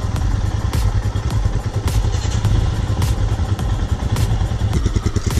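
Royal Enfield Himalayan's single-cylinder engine running under the rider, heard as a loud low rumble, settling into a quick, even thumping idle near the end.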